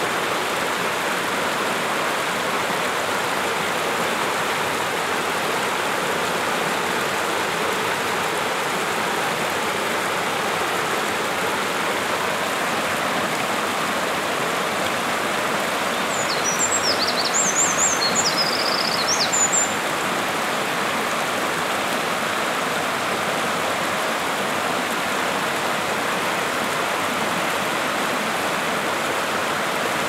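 Steady rush of a mountain stream, and a little past halfway a Eurasian wren sings one loud song of rapid, high trills lasting about three and a half seconds, a male's song that seems aimed at a female.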